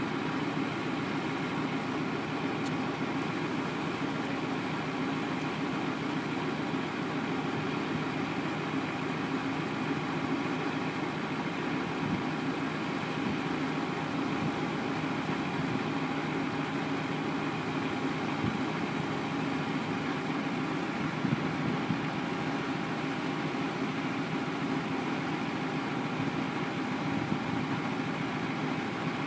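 Yard tractor's diesel engine running steadily while it drives the hydraulic hoist raising an end-dump trailer's box.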